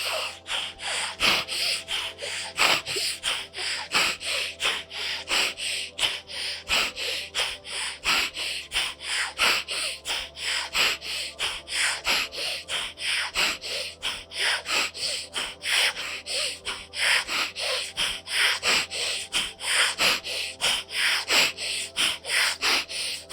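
Rapid, forceful breaths through the nose, about two to three a second, in a steady rhythm: anulom vilom bhastrika pranayama, breathing in through one nostril and out through the other, alternating sides.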